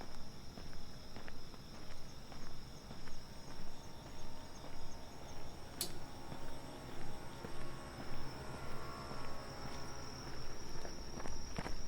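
Night insects chirring steadily at a high pitch, with unhurried footsteps about twice a second. A single sharp click about six seconds in.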